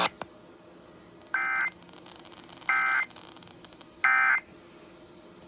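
Electronic beeper giving three short, even beeps about 1.4 s apart, after a single click near the start.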